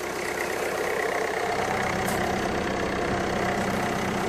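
Peugeot 308's 1.6 HDi four-cylinder diesel engine idling steadily.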